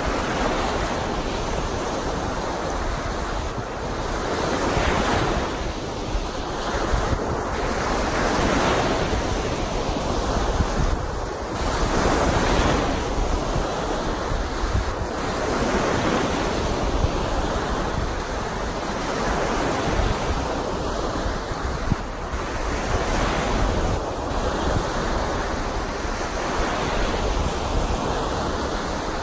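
Lake Superior waves breaking on the shore in a continuous wash that swells and eases every few seconds as each wave comes in, with wind rumbling on the microphone.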